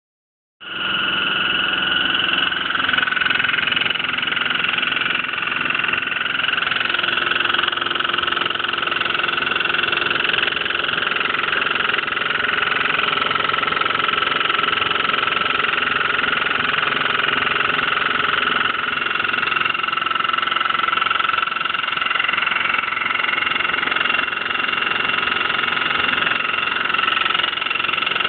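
Hotpoint washing machine running with a steady high-pitched whine, a noise whose cause the owner does not know. It starts about half a second in.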